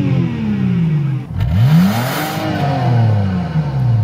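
Car engine being revved in park: the pitch falls back from a high rev, climbs quickly again about a second and a half in, and slides back down over the next two seconds.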